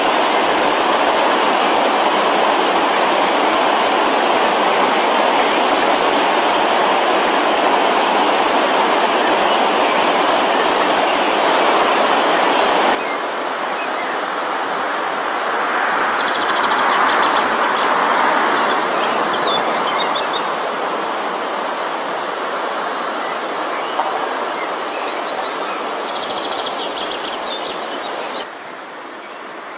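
Rushing river water, a loud steady noise. After a sudden cut about 13 seconds in it drops to quieter flowing water, and a small bird sings short high phrases over it twice.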